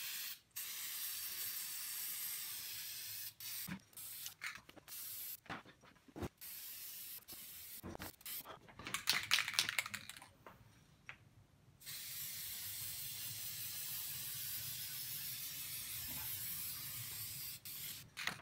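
Aerosol can of DuraCoat TruStrip degreaser spraying onto a rifle barrel. It hisses in several short bursts with a louder, choppier stretch midway, then in one long steady spray over the last six seconds or so.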